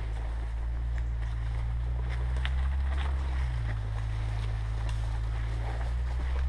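Steady low rumble of wind noise on a body-worn camera's microphone, with faint scattered crackles of footsteps and brushing twigs as the wearer walks through dry scrub.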